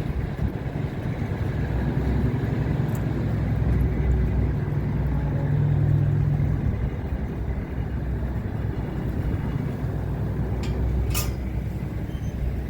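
A motor vehicle running: a steady low engine and road rumble that swells and eases off around the middle, with a sharp click about eleven seconds in.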